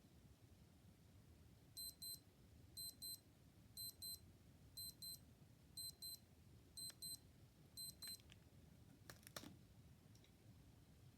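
Old digital watch alarm beeping in pairs of short, high-pitched beeps, about one pair a second, seven times. A brief crackling noise follows near the end.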